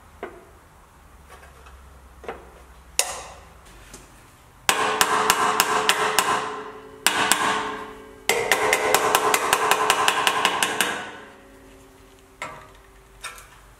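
Hammer striking a steel repair panel clamped with locking pliers to the sill of an Alfa Romeo Giulia 105, shaping it to fit. A few single taps, then two fast runs of blows, several a second, with the sheet metal ringing, then a couple more single taps near the end.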